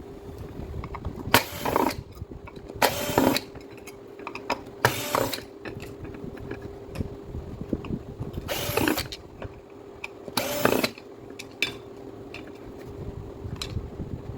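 Mechanical clattering and scraping of tool parts being handled and worked on, in about five short loud bursts with smaller clicks between, over a steady hum.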